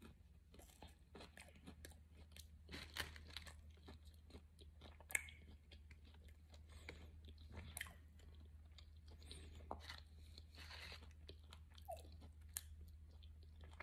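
Faint chewing of a battered, deep-fried carp strip, with scattered short soft clicks.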